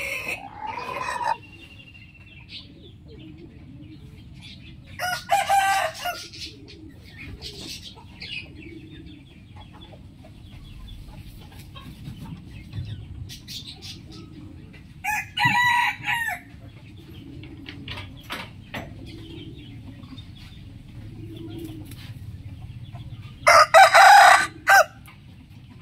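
Rooster crowing: three loud crows about a second and a half long each, roughly ten seconds apart, over a low steady background noise.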